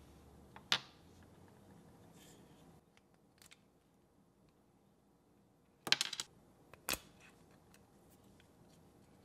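Sharp clicks and clatter of small plastic and metal RC axle parts being handled on a tabletop. One click comes about a second in, a quick rattle of clicks at about six seconds, and another click just after.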